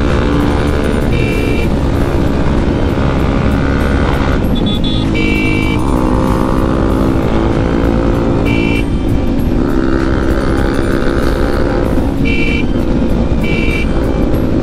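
Bajaj Pulsar NS200 motorcycle engine through a loud exhaust, revving up and down while riding in traffic. Short two-tone horn beeps sound several times over it.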